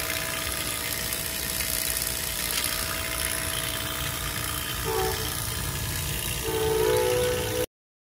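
Vacuum pump running steadily while it evacuates an air conditioner's refrigerant lines, a low rumble under a thin steady tone. A louder horn-like tone sounds briefly about five seconds in and again, longer, near the end, and then the sound cuts off suddenly.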